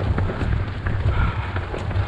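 Wind buffeting the microphone of a running camera, a heavy uneven rumble that swells and dips, with the runner's footsteps ticking through it.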